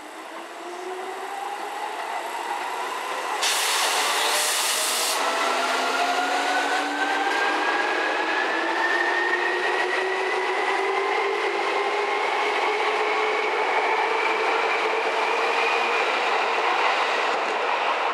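Electric commuter train accelerating out of a station: a whine of several tones rising steadily in pitch as it gathers speed, over the running noise of the wheels on the rails. A brief loud hiss comes twice about three and a half to five seconds in.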